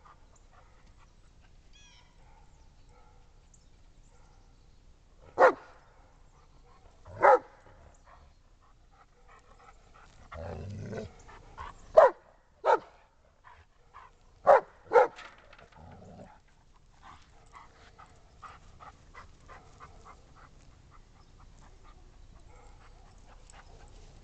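Giant Schnauzer barking at a horse: six short, sharp barks, two single ones a couple of seconds apart, then two quick pairs.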